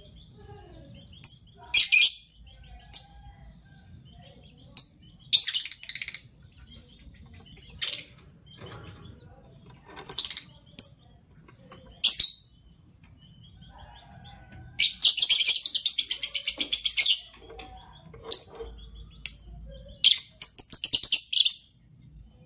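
Lovebirds giving short, shrill chirps every second or so, with a rapid run of chattering notes lasting about two seconds well past the middle and a shorter run near the end.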